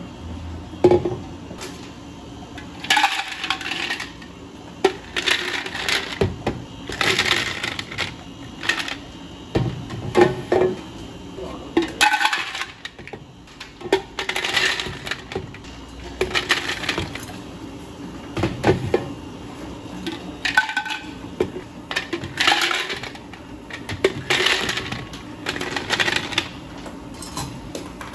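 Ice cubes clattering into a clear plastic pitcher, a batch at a time, in about a dozen separate rattling pours of roughly a second each.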